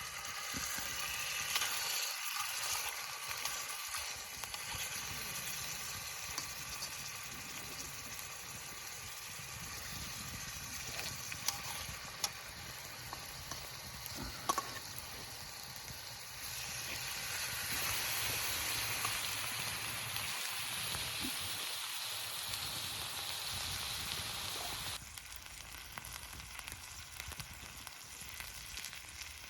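Food sizzling and frying in a hot pan, a steady crackling hiss with scattered pops. It grows louder about halfway through and eases off a few seconds before the end.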